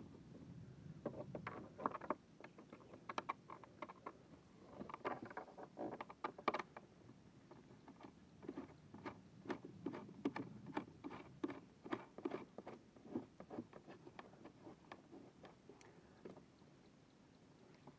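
Light, irregular clicks and taps of hardware and hands working on a plastic kayak's fittings. They come in clusters, then settle into about two or three a second and thin out near the end.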